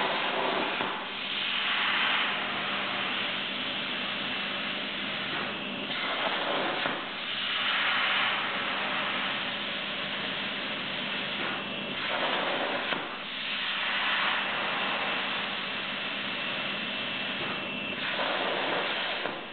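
Plasma cutter on a homemade CNC table cutting steel plate: a rushing hiss from the arc that swells and eases about four times as the torch cuts one hole after another. A steady low hum and a faint high whine run beneath it.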